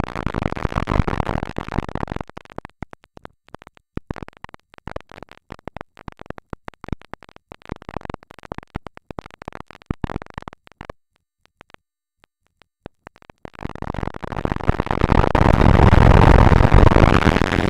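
Harsh, distorted electronic noise, chopped into rapid stuttering bursts for about ten seconds, then a short silence and a long loud swell of distorted noise with heavy bass.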